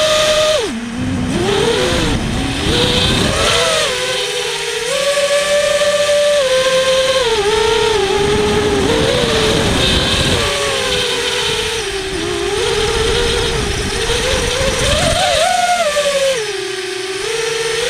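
Four Lumenier Freybott brushless motors spinning Dal Cyclone 5045 props on an FPV racing quadcopter, their whine rising and falling with the throttle. The pitch drops sharply just under a second in as the throttle is chopped, then climbs and falls again near the end, with rough wind and prop-wash rumble on the onboard microphone.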